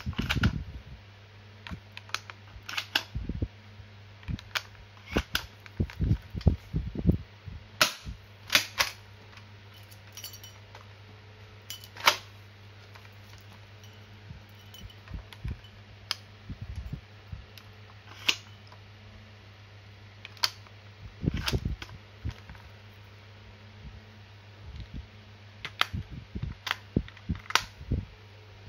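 Toy SPAS-12 shell-ejecting shotgun being handled: irregular sharp clicks and clacks as shells are loaded and the mechanism is worked. A low steady hum runs underneath.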